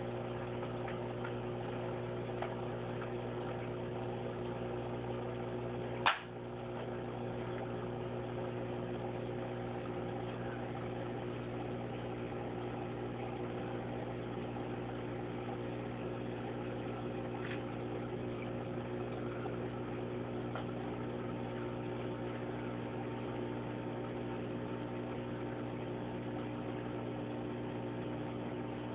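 Steady electrical hum of running aquarium equipment, with several steady tones over it. A single sharp click comes about six seconds in.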